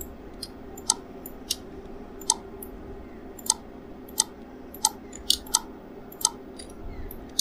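Sharp clicks of a computer keyboard and mouse, about a dozen at irregular intervals, over a faint steady background hum.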